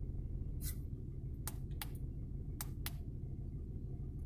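Hyundai Tucson's four-cylinder engine idling roughly with an ignition misfire, now in cylinder 2 after the coil packs were swapped, while the buttons of a handheld scan tool click a few times, twice in quick pairs.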